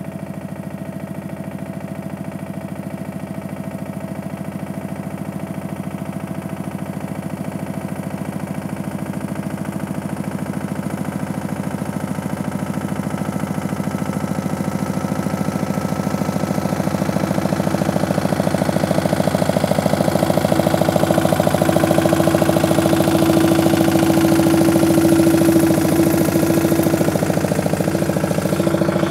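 Pasquali 906 compact tractor engine running at a steady speed as the tractor drives up and passes close by: it grows steadily louder, is loudest a little after two-thirds of the way through, then eases off slightly as it goes past.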